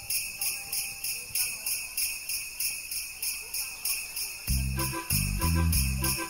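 Jingle bells shaking in a steady rhythm as the opening of a Christmas music track. About four and a half seconds in, a bass line and fuller backing music come in under the bells.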